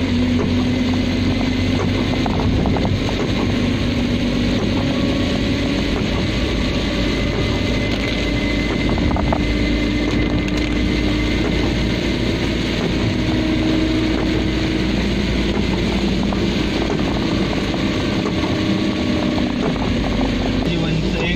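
Steady cabin noise of a car driving through heavy rain on a wet road: a low engine hum under a wash of tyre and rain noise.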